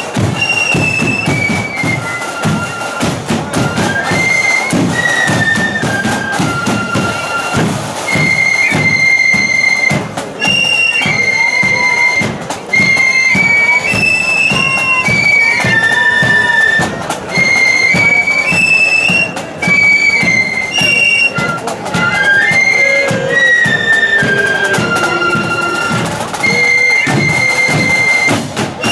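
Marching flute band playing a tune in unison on high-pitched flutes, with drums keeping a steady beat underneath.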